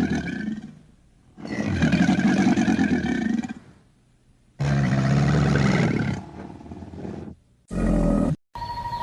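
A large animal roaring: three long, drawn-out roars of two to three seconds each with pauses between them, then a short burst that cuts off abruptly near the end. After the cut come a steady high tone and faint bird chirps.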